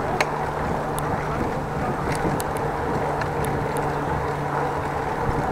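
Wind and road noise on the microphone of a cyclist's action camera while riding: a steady rushing with a low hum, and scattered faint ticks.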